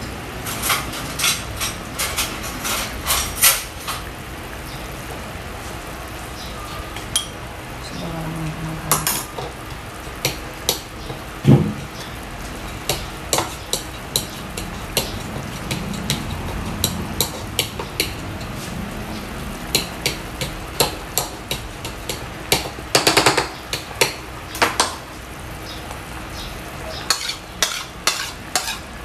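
Metal spoon clinking and scraping on a ceramic plate while mashing boiled squash, in irregular runs of sharp clicks with one louder knock partway through. Near the end the spoon scrapes the mashed squash off the plate into a pot.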